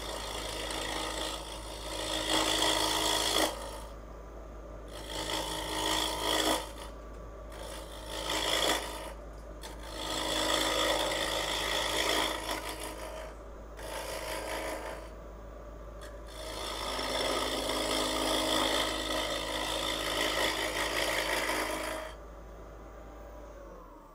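Wood lathe running while a turning tool cuts into the spinning corners of a rectangular wooden blank, a scraping, chattering cut in half a dozen separate passes of one to five seconds. The cutting stops about two seconds before the end while the lathe motor keeps humming.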